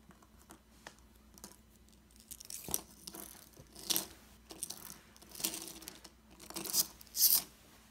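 Small plastic toy figures and toy cars knocking and scraping against each other and a tabletop as they are moved about by hand: scattered light clicks and a few short rustling scrapes, the loudest near the end.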